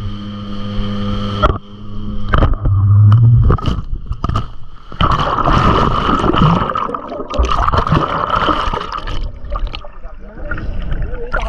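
A watercraft engine running over water, with splashing, gurgling water and many rough knocks from the hull and water against the microphone.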